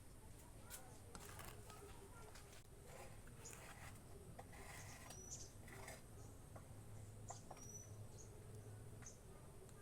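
Near silence: faint scattered clicks and taps, with two brief high chirps near the middle.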